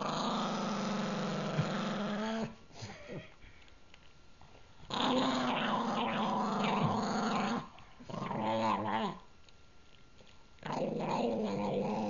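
A pug growling while he defends a treat he is chewing: four long, drawn-out growls of one to two and a half seconds each, with short pauses between.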